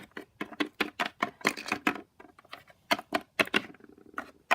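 Irregular run of sharp clicks and taps: small hard plastic toy figures and props being handled and set down on a hard surface.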